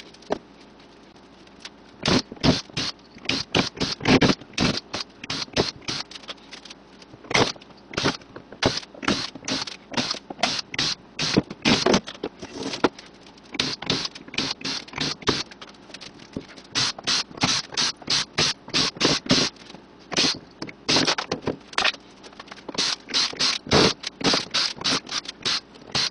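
A cordless drill-driver backing screws out of a plywood crate, heard as many short, sharp bursts in quick succession.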